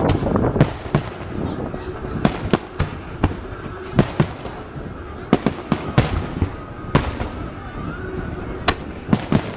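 Fireworks display: aerial shells bursting in an irregular series of sharp bangs, several close together near the start and again a little past the middle, over a steady background hum of people.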